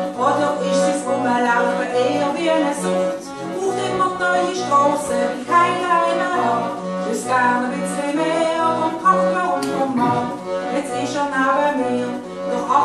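A woman singing a Swiss German dialect chanson, accompanied by piano accordion and acoustic guitar, with a steady, regular bass pulse underneath.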